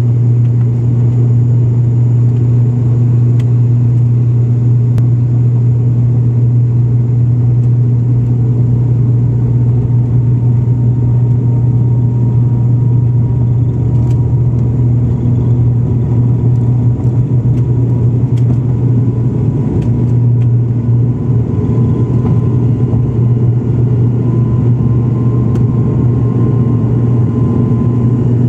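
ATR 72-600's Pratt & Whitney PW127 turboprop engines and propellers at takeoff power, heard inside the cabin right beside the engine: a loud, steady low propeller drone through the takeoff roll and climb-out. A faint higher whine rises slightly in the second half.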